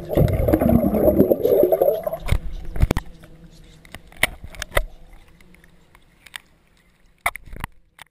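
Water churning and bubbling against an underwater camera housing for about two seconds, then quieter, with scattered sharp clicks and knocks.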